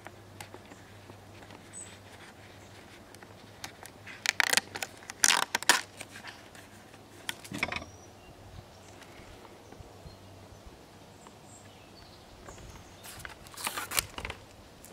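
Crackling and rattling of thin plastic protective film being peeled off the auto-darkening filter of a plastic welding helmet, with handling knocks from the helmet shell. It comes in short bursts about four to six seconds in, once more near eight seconds, and again near the end.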